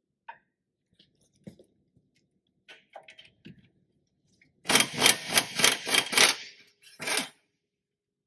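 Impact wrench hammering on a hub-to-knuckle bolt: a loud run of rapid strokes for about two seconds, then a shorter second burst. Before it come a few light clicks and knocks of tools being handled.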